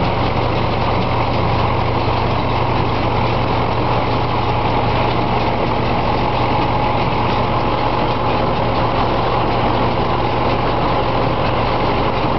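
An engine idling steadily, with a strong low hum and no change in speed.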